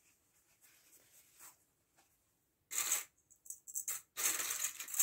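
Hands handling fabric and snapping binder clips onto its edge. Faint at first, then in the second half a few bursts of rustling and short clicks, with a longer rustle near the end.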